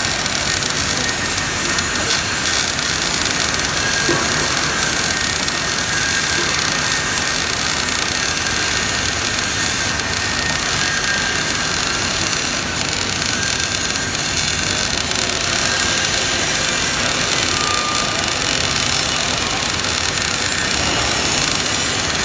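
GMAW (MIG) welding arc burning steadily, an even, unbroken hiss with no pauses.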